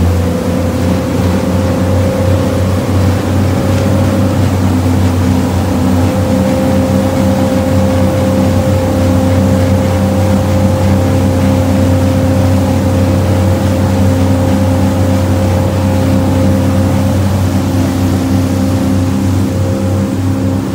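Engines of a 1990 Sea Ray 390 Express Cruiser running steadily at cruising speed, a constant low drone with a steady higher tone, over the rush of the wake and wind.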